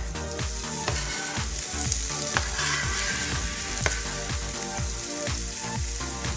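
Chopped red onion sizzling in hot oil in a frying pan, the hiss starting as the onion goes in, with a couple of sharp taps. Background music with a steady beat plays underneath.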